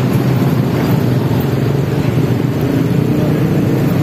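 Road traffic of cars and motorcycles driving past close by, with a steady mix of engine rumble.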